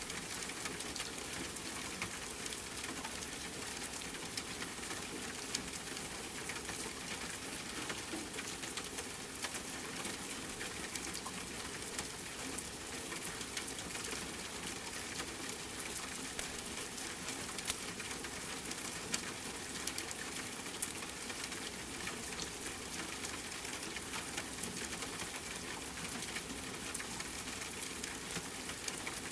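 Steady rain with a wood fire crackling: an even hiss dotted with many small pops, and one sharper pop about twenty-one seconds in.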